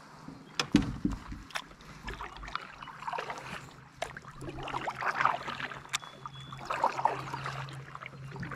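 Kayak being paddled: the paddle blade swishes through the water in a stroke about every two seconds. About a second in come a few sharp knocks and a low thump.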